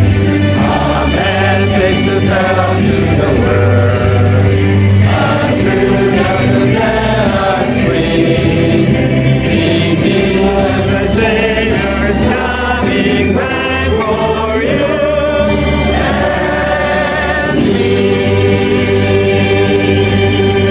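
A choir singing a gospel-style Christian song, with vibrato-laden voices over a sustained low accompaniment.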